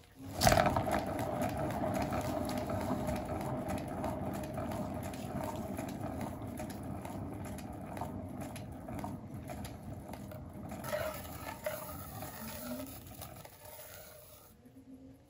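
Paint-pouring turntable spun by hand: a knock as it is pushed about half a second in, then a steady whirring hum from the spinning turntable that slowly fades as it coasts down.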